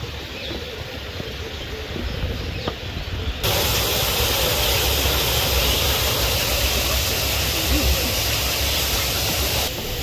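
A steady rushing hiss that starts abruptly about three and a half seconds in and cuts off just as suddenly near the end.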